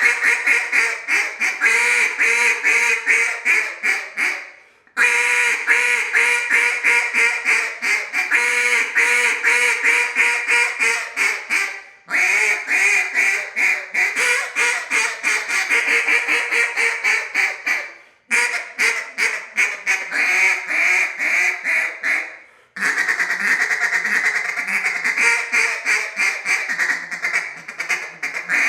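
Elite Duck Calls acrylic 'Freak' mallard duck call blown in runs of rapid hen quacks. Four or five runs are separated by brief pauses.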